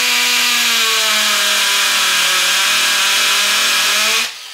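Bosch 14.4 V drill drilling into a cement block, run from a 12 V gel battery chilled to 5 °C: a steady motor whine that sags slightly in pitch under load. It stops about four seconds in. The battery keeps the drill running well despite the cold.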